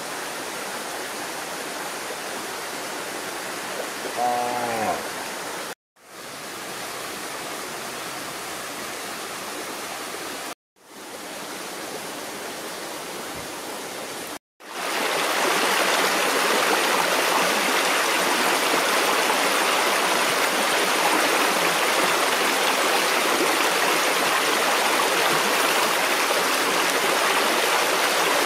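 Shallow rocky stream rushing over stones: a steady, loud wash of water that starts abruptly about halfway through. Before it there is a quieter, steady rushing noise, broken twice by sudden gaps of silence.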